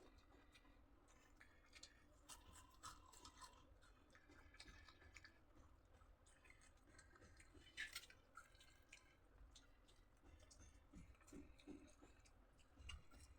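Faint close-up eating sounds: a person chewing, with scattered small wet mouth clicks and crackles and one sharper crunch about eight seconds in.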